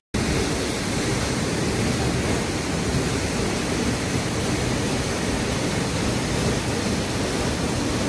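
Waterfall pouring onto rocks: a steady rush of falling water, starting abruptly after a moment's silence.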